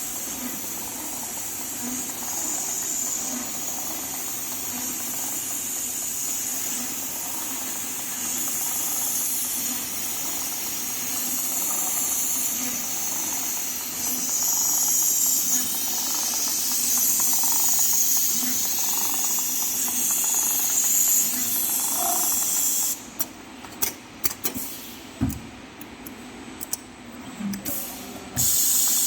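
A steady high hiss, with faint voice-like sounds underneath. About 23 seconds in it drops away for about five seconds, broken by a few sharp clicks, then returns.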